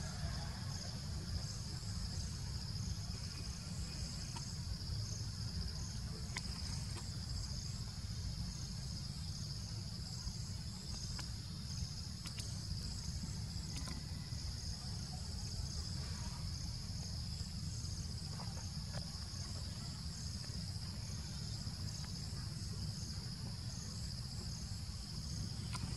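Steady high-pitched chorus of insects, with a faint even pulsing above it, over a constant low rumble.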